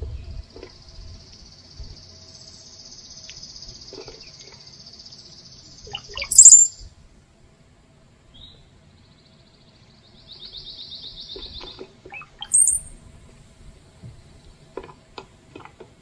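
Songbirds calling: a long, high, buzzy trill lasting about six seconds ends in a loud, sharp, very high chirp. A shorter trill follows, then a second sharp chirp. Faint clicks come near the end.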